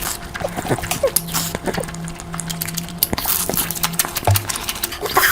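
Close-miked eating sounds: wet chewing and lip smacks while eating curry, a run of quick irregular clicks and smacks over a faint steady low hum.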